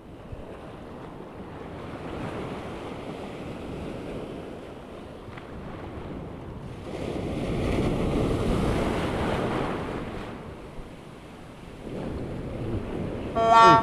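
Sea waves breaking and foamy surf washing in, swelling loudest about eight seconds in, with wind rumbling on the microphone.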